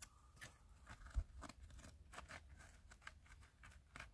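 Faint scraping and clicking of a small hand pick working into gravelly dirt and rock, with one sharper tick about a second in.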